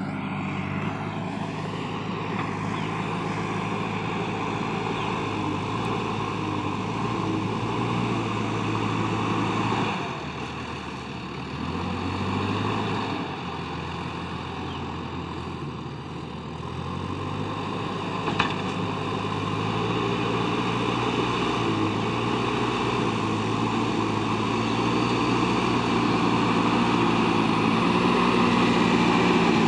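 Diesel engine of a JCB backhoe loader running under load as it pushes and scoops soil with its front bucket, the engine note shifting lower and higher through the middle. One sharp knock a little past the middle, and the engine grows louder near the end as the machine comes close.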